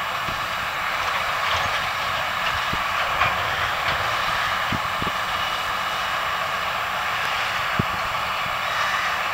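Steady mechanical drone of silage-harvesting farm machinery running, with a few light knocks.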